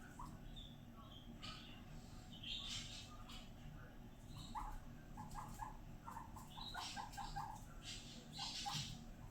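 Guinea pig chutting, a happy call: a run of short, low, evenly repeated chirps, several a second, through the middle of the clip, with a few short scratchy noises around it.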